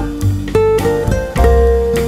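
Background music: a plucked-string melody of held notes that change every fraction of a second, over a strong bass.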